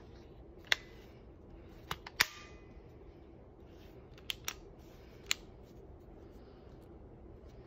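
Sharp plastic clicks from handling a Black+Decker cordless electric screwdriver: its switch and pivoting handle snapping into position. There are about seven separate clicks, three of them close together about two seconds in, with no motor running.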